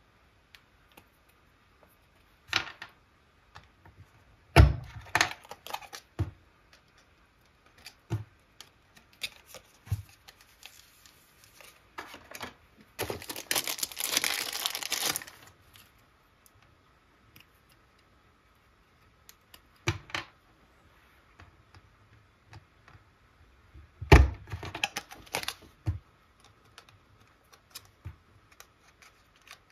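Small clear plastic bags of enamel pins being handled and opened: thin plastic crinkling in scattered bursts, with light clicks and taps, and a longer spell of crinkling about halfway through. Two sharper knocks, the loudest sounds, come about five seconds in and about twenty-four seconds in.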